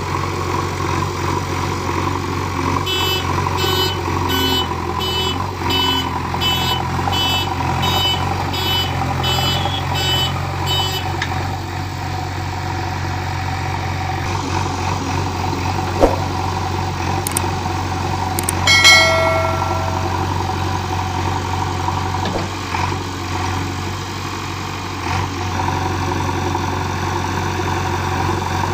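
JCB 3DX backhoe loader's diesel engine running steadily under work. For about the first third its reversing alarm beeps at a steady rate, a little more than once a second, and past the middle there is a single short, loud tone.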